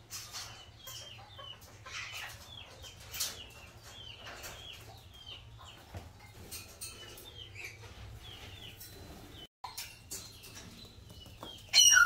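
A mixed group of pet parrots chattering, with many short chirps and clicking sounds. One loud, harsh screech comes near the end.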